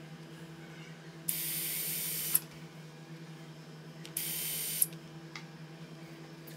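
Powered surgical drill run in two short bursts, about a second and then about half a second, driving fixation pins through the femoral sizing guide into a saw-bone femur.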